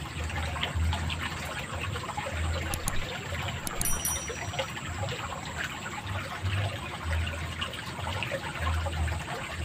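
Water running and trickling steadily along a stone-walled drainage ditch carrying muddy runoff after rain.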